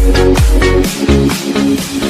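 Electronic dance music with a steady four-on-the-floor kick drum and sustained synth chords; the kick drops out for about a second midway, then returns.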